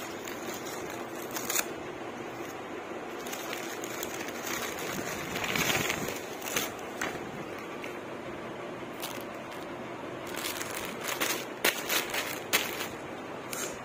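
Scissors snip through a brown paper courier bag, and the paper rustles as a plastic-wrapped garment is pulled out. Sharp crackles of the plastic wrapping come near the end, over a steady hiss.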